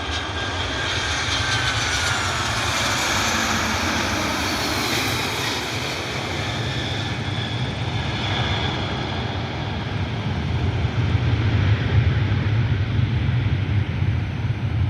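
Boeing 737-800 airliner's CFM56 jet engines as it comes in to land, a whine falling in pitch as it passes over the first few seconds, then a low rumble growing louder in the second half.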